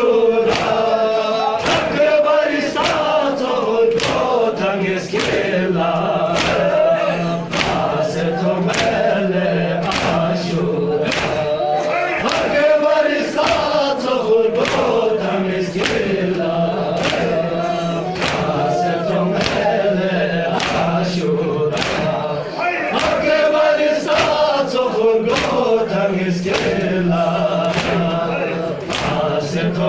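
A crowd of men chanting a Balti noha (Shia lament) together, with rhythmic chest-beating (matam) in unison a little faster than once a second. A steady low drone runs under most of it.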